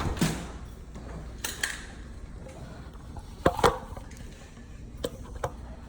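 Scattered sharp knocks and clicks of heavy wire and tools being worked at an electrical panel as a feeder conductor is landed on a breaker, the loudest a quick pair of knocks about three and a half seconds in.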